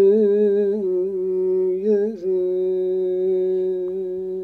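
An elderly man singing a Turkish folk song unaccompanied, drawing out a single syllable as one long note. For about two seconds the note wavers with small ornaments, then it settles into one steady held tone.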